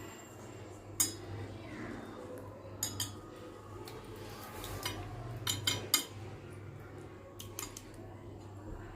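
Scattered sharp clinks and knocks of kitchenware against a bowl as chicken leg pieces are turned in a yogurt-spice marinade: about a dozen, with a single loud clink about a second in and a quick cluster near the two-thirds mark.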